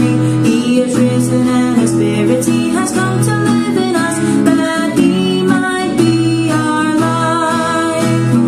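Music: a song sung over plucked acoustic guitar.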